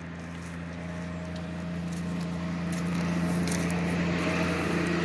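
A steady low engine hum that holds one pitch and grows gradually louder, typical of a motor vehicle running nearby.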